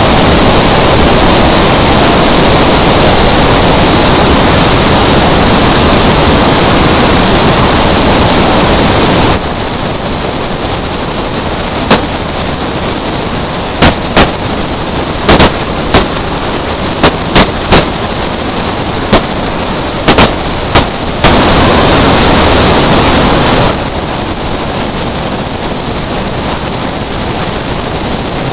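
A drift car heard through a hood-mounted camera: a loud, steady roar of engine and rushing air. About nine seconds in the roar drops lower. Over the next nine seconds come about fifteen sharp, single cracks, some close together in pairs. The loud roar returns briefly a little after twenty seconds, then drops again.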